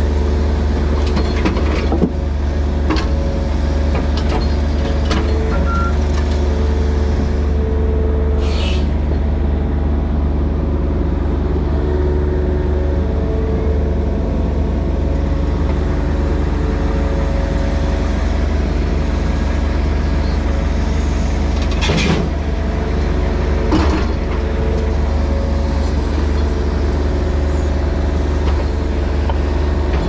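Mini excavator's diesel engine running steadily under hydraulic load, with a few sharp knocks from the bucket working the concrete: one about two seconds in and two more near the end.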